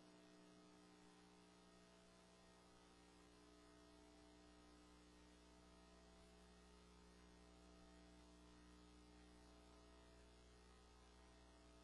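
Near silence: a faint, steady hum made of several low tones.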